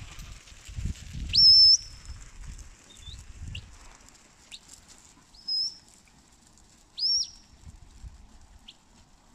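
Shepherd's whistle commands to a working sheepdog: a long, loud high whistle about a second and a half in, then a string of shorter whistles a second or two apart, some sliding up or dropping in pitch.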